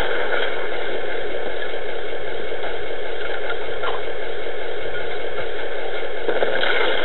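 Hooben T-55 RC model tank's sound unit playing a steady simulated engine idle while the tank stands still.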